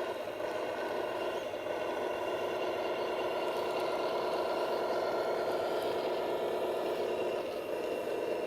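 Radio-controlled construction vehicle's electric motors and gearing whining steadily, changing slightly in pitch about a second and a half in and again near the end.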